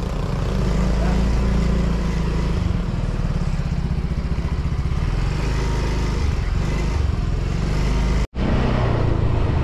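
Motor scooter running steadily as it is ridden along a street, with a constant low rumble; the sound cuts out for an instant near the end.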